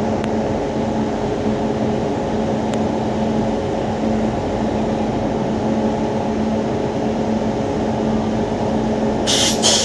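WAP7 electric locomotive standing with its cooling blowers running: a loud, steady hum. About nine seconds in comes a short, sharp hiss of released air.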